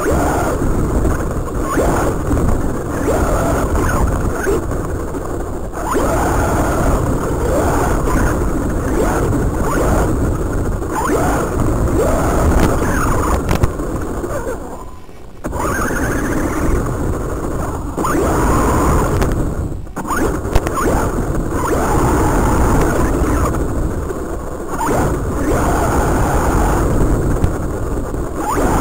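Feiyue Eagle RC buggy driving over rough ground: its electric motor and gears whine up and down with the throttle over a steady rumble of tyres and chassis. It is heard through the car's own onboard camera microphone, and goes briefly quieter about fifteen seconds in.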